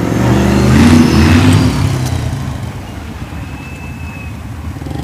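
Monster truck engine revving as the truck accelerates past, the pitch rising and loudest about a second in, then fading as it moves away.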